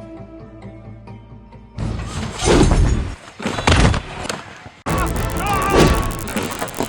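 Background music, then about two seconds in loud noisy thuds and crashes that break off and start again abruptly.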